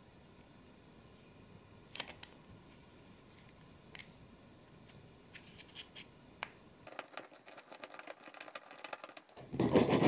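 Small plastic toy wheels being fitted and handled on the axles of a wooden toy car: a few faint sharp clicks, then a fast rattle of clicks as a wheel turns. Near the end the toy car is rolled across a cutting mat, a brief, louder rolling rumble of its wheels.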